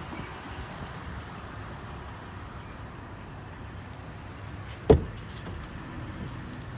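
Steady, quiet background noise with one sharp thump about five seconds in.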